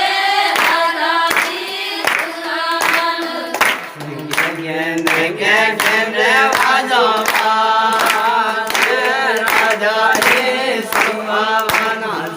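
A group singing a devotional worship song together, with hand claps keeping a steady beat.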